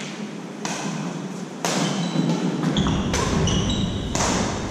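Badminton rackets hitting a shuttlecock in a rally: four sharp hits about a second apart, each echoing in a large hall, with short high squeaks between them.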